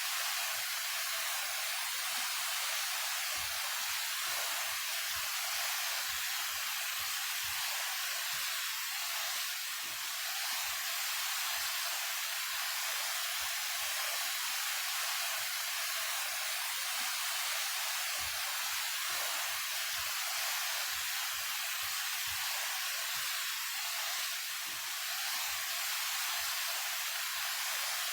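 A 28 m waterfall pouring steadily: a constant rushing hiss of falling water, mostly in the high range with little low rumble.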